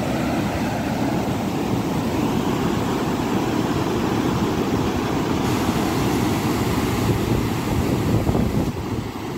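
Water rushing steadily, a dense low rumbling noise that eases slightly near the end.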